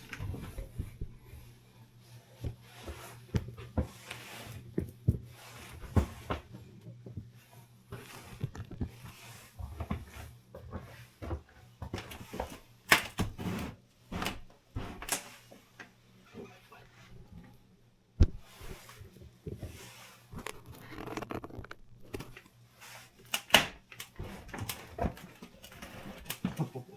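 Scattered knocks, clicks and rustling handling noises over a faint steady low hum, with a few sharper knocks.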